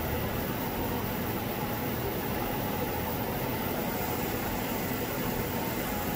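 Steady whirring hiss of equipment cooling fans, with a faint steady hum tone over it.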